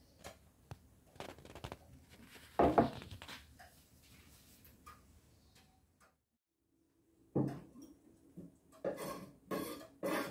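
Light knocks and rustles of hands working over halved squash and a small glass bowl on a wooden cutting board, then, after a sudden break, a knife chopping on the board in several strokes about half a second apart.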